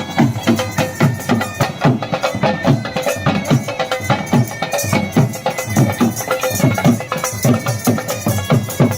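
Music with a fast, steady drum beat of about three to four strokes a second under a held melody.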